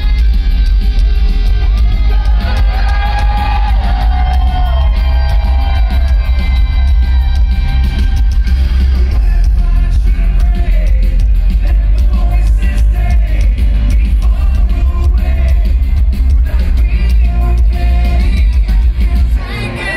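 Live rock band playing loudly, with a male lead singer over bass-heavy drums and guitars. The band stops abruptly just before the end.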